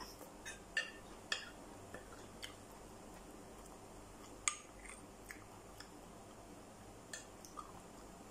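Close-up eating sounds: chewing of boiled okra with small mouth clicks, and a few light taps of a spoon on a plate. The sharpest tap comes about four and a half seconds in.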